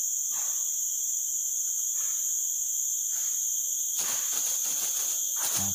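Steady, high-pitched chorus of tropical forest insects buzzing in several layered pitches, with a few soft rustles and a short patch of rustling noise about four seconds in.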